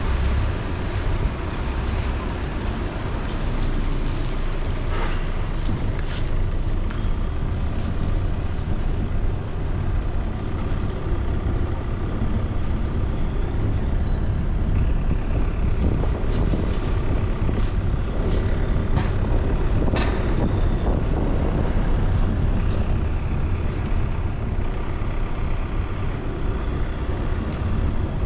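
Steady road and engine rumble of a car being driven, with some wind noise and a few short knocks along the way.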